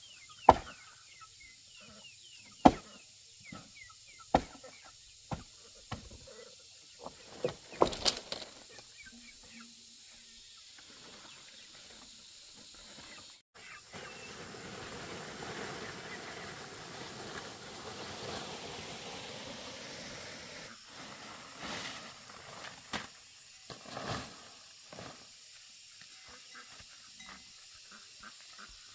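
Sharp chops and knocks on leafy tree branches, irregular, about a dozen strokes over the first eight seconds, the loudest near the start. Then a stretch of leaves rustling as the branches are moved, with a few more knocks near the end.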